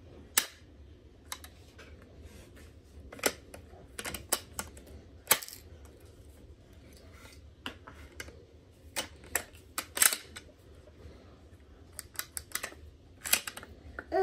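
Bolt action of a Lithgow Model 1A single-shot .22 rifle being worked by hand, with the trigger pulled: a dozen or more sharp metal clicks and clacks at an irregular pace.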